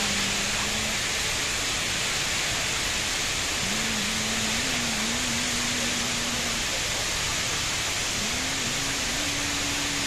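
The Rain Vortex, a tall indoor waterfall, pouring from the roof oculus in a steady, even rush of falling water. A faint wavering low tone comes and goes beneath it.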